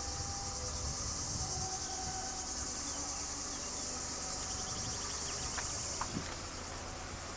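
Cicadas buzzing in a steady, high-pitched chorus that eases slightly near the end, over a low rumble.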